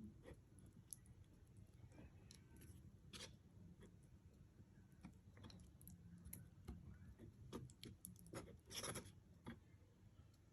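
Faint clicks and scrapes of a utensil stirring glue and food colouring together in a bowl, with a slightly longer scrape about nine seconds in.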